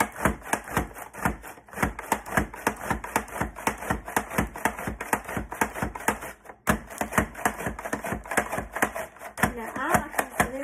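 Pampered Chef Rapid Prep Mandoline pumped rapidly by its plunger, slicing small sweet peppers through the julienne blade: a steady run of sharp clicks, about three or four a second.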